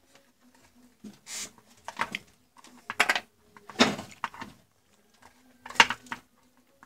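Hand-handling noises on a workbench: a plastic power adapter brick and its cable being picked up, moved and set down, giving a string of short knocks and rustles, the loudest about four seconds in and again near six seconds. A faint steady low hum runs underneath.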